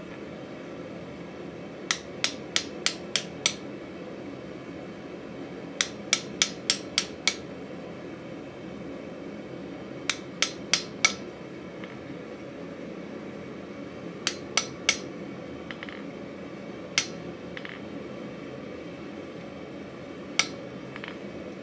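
Hammer striking a hand-held chisel as it cuts decorative lines into a hot mild-steel bottle opener on the anvil: sharp metallic blows in quick runs of about four a second, six, six, four and then three, followed by two single blows near the end.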